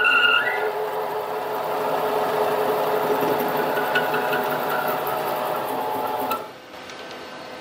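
Mini lathe running while a 1.5-inch drill bit cuts into metal, a steady machine drone with a high squeal that stops about half a second in. About six and a half seconds in the sound drops sharply to a quieter run as the bit breaks through.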